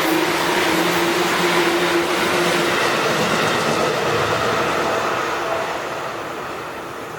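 Seibu 2000 series electric train running through a level crossing, its wheels on the rails and its running gear loud. The sound fades from about five seconds in as the train moves away.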